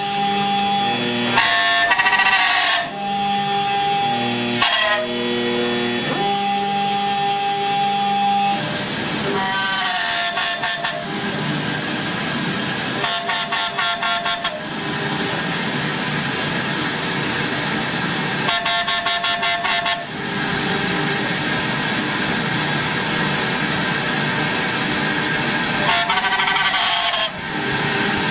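CNC router at work: its stepper motors sing in steady tones that jump to new pitches every second or two as the axes move. From about eight seconds in, this gives way to a steady, dense noisy running sound, with short gliding whines as the motors speed up and slow down.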